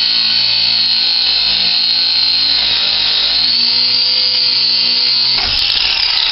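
Ryobi One+ 18-volt P420 cordless 4½-inch angle grinder with a cut-off wheel, cutting steadily through a steel bolt with a loud, continuous grinding hiss. It is running at full strength on a freshly charged battery. The sound turns rougher about five seconds in.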